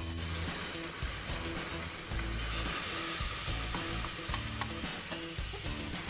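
Onion and garlic frying in hot oil in a stainless steel pan, sizzling. Raw chayote strips are tipped in and scraped from a bowl with a spatula, with a few small scraping clicks. The sizzle turns sharper and louder right at the start and holds.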